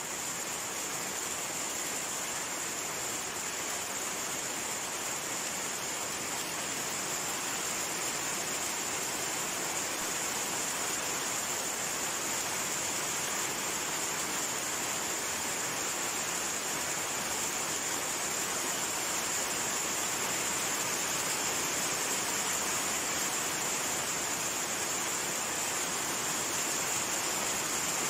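Rain falling steadily: an even, unbroken rushing hiss that grows slightly louder toward the end.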